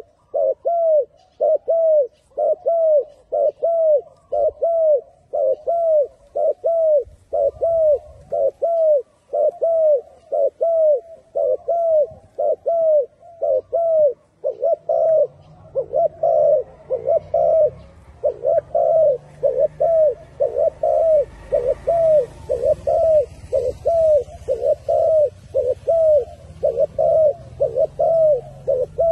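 Spotted dove cooing: a long, even run of short coos, each falling in pitch, about one and a half a second.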